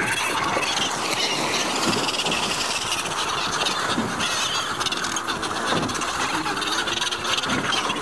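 Steady rushing noise of wind and sea around a seabird feeding frenzy, with splashing and flapping as albatrosses and giant petrels scramble at a chum cage among a flock of cape petrels.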